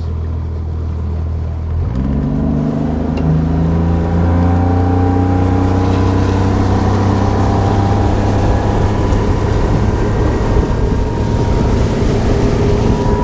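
Outboard motor on a Bass Tracker Pro 170 bass boat, running low, then throttled up about two seconds in, its pitch rising and settling into a steady run as the boat gets under way.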